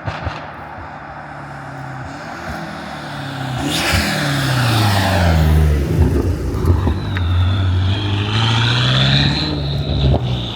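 BMW F90 M5's twin-turbo V8 running through a catless straight-piped exhaust, the engine note steady at first, then dropping in pitch and growing louder about four seconds in, and climbing again near the end.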